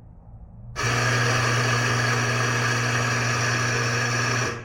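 Grind-by-weight espresso grinder running, grinding decaf beans: the motor starts about a second in with a steady hum under the grinding noise and cuts off sharply near the end, having dosed about 19 grams by weight.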